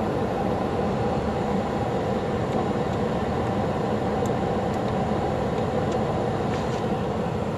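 Mi-8-type military helicopter running on the ground with its rotor turning, making a steady, even running noise.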